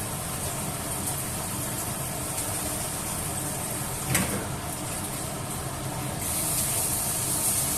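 A pot of coconut-milk gravy heats on the stove with a steady hiss and low hum. There is one sharp knock about four seconds in, and the hiss grows louder near the end.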